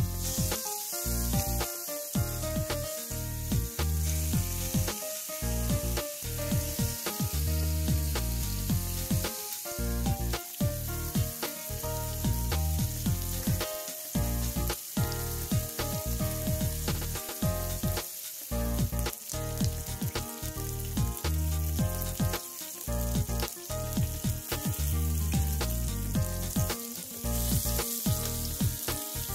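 Marinated chicken wings sizzling on a hot ridged electric grill plate, a steady frying hiss, with background music underneath.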